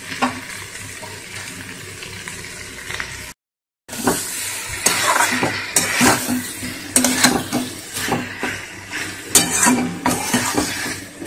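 Spatula scraping and stirring spiced cauliflower and potato pieces in a metal pan over a light frying sizzle, as the vegetables are sautéed in their masala. The sound cuts out briefly a little over three seconds in, then the stirring comes back as quicker, irregular scrapes and knocks against the pan.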